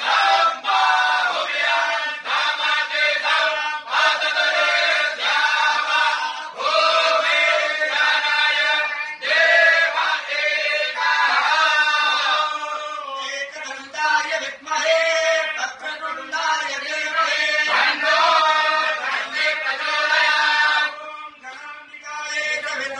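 A group of Brahmin priests chanting a Sanskrit hymn of praise to the goddess Chandi together, phrase after phrase, with a brief dip near the end.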